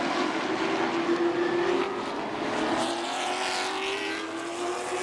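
A field of Super Late Model stock cars with V8 engines running hard through the turn. One car passes close by about three seconds in, its pitch falling as it goes.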